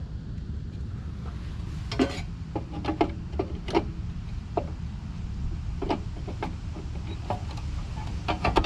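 Older ICP condenser unit running: a steady low hum from the compressor, with irregular light clicks and taps from handling around the unit. Its fan is barely turning on a failing fan motor.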